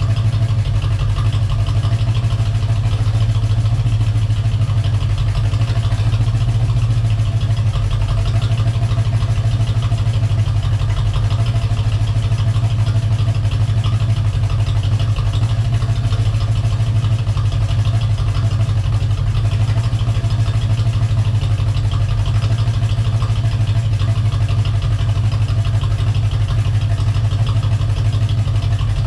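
1985 Corvette's 350 TPI V8 idling steadily, with a tapping that the owner puts down to a lifter.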